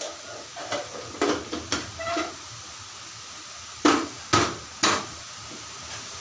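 Metal clinks and knocks of a pressure cooker's lid being fitted and closed: a few light clinks with a short ring in the first two seconds, then three loud knocks about half a second apart around four to five seconds in.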